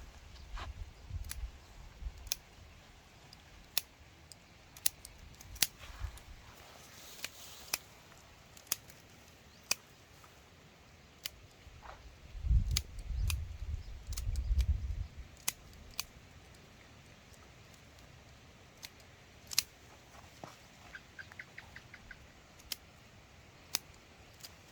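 Scissors snipping climbing wattle shoots: scattered sharp clicks and snips. A few seconds of low rumbling handling noise come about halfway through, and a quick run of small ticks near the end.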